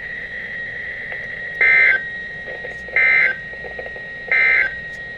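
NOAA Weather Radio EAS/SAME end-of-message code: three short bursts of buzzy digital data screech, evenly spaced about a second and a third apart, marking the end of a special marine warning broadcast. A faint steady high tone and radio hiss run underneath.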